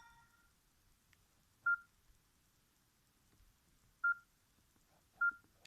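Mobile phone keypad beeps from a Samsung GT-B3210: three short, identical single-pitched beeps, irregularly spaced, about a second and a half in, four seconds in and five seconds in. The tail of a ringtone fades out at the very start.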